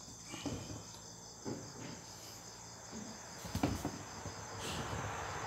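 Crickets chirping steadily in the background, with a few light knocks.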